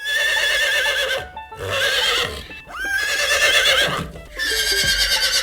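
Horse whinnying four times in a row, each call long and quavering in pitch.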